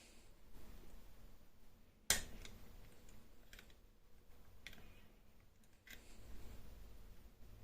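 Metal clicks of a 2-in-1 lever lock pick working inside a Mauer Deposit 10 lever lock: one sharp click about two seconds in, then fainter clicks about once a second.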